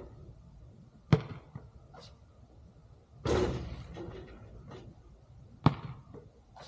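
Basketball practice: two sharp thuds of a basketball bouncing, one about a second in and one near the end, with a longer, fading hit in between.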